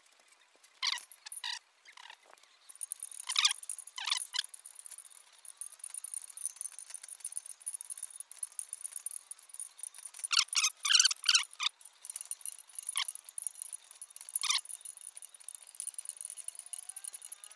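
Groups of short, high squeaks: spoke nipples squeaking as a spoke wrench turns them to tighten the spokes of a motorbike wheel. A steady high hiss runs behind them.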